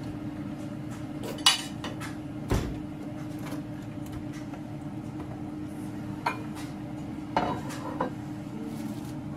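Metal kitchen utensils clinking against pots, pans and dishes about five times, sharp separate knocks over a steady low hum.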